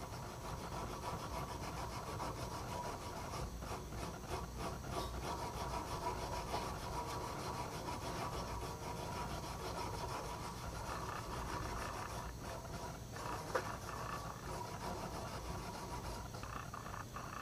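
Wire brush scrubbing bare copper tubing in quick back-and-forth strokes, a steady scratchy rubbing. It is cleaning the tube's surface down to bright metal so the piercing valve's gasket can seal.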